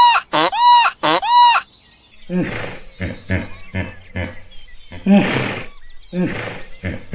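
A bird honks loudly three times in quick succession. After a short pause comes a run of rough, low grunts and snorts from hippopotamuses, the longest near the middle.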